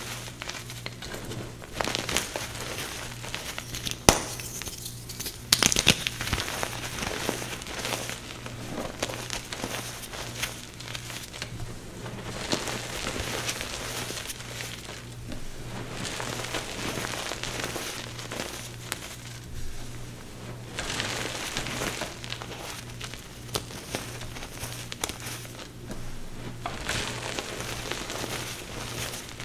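Chalk blocks crushed and crumbled to powder in the hands: a steady crackle of small crunches and grainy squeezes. A couple of sharper cracks come about 4 and 5 seconds in.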